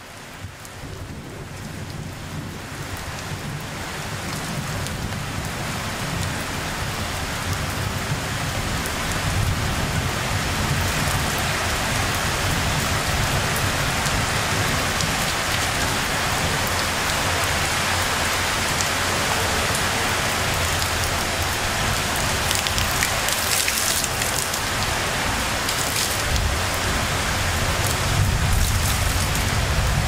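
Steady summer rain falling, fading in over the first several seconds and then holding even, with a low rumble underneath. A few sharper spatters of nearby drops come near the end.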